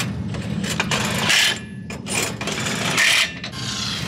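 Hand-tool work at a race car's front wheel hub during a brake pad change: scattered clicks of metal on metal, and two short, loud, noisy bursts about two seconds apart.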